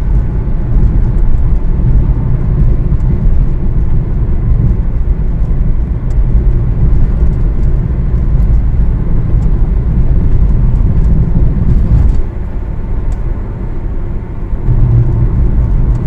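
Car driving on a rough asphalt road, heard from inside the cabin: a steady low rumble of tyres and engine that eases off for a couple of seconds about twelve seconds in, then comes back.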